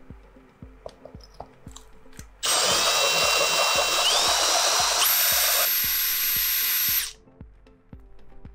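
Electric drill driving a diamond hole saw, grinding loudly into the hard glazed base of a pot, which the maker takes to be porcelain. It runs from about two and a half seconds in to about seven seconds, with a whine that steps up in pitch midway and a high whine joining near the end. Background music with a steady beat plays throughout.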